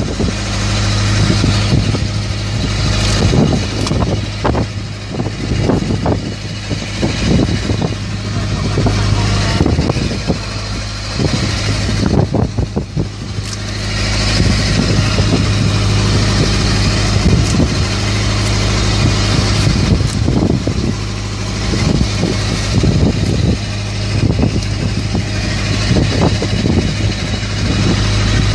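Fishing boat's engine running with a steady low drone, with scattered knocks and thuds from fish and gear being handled on deck.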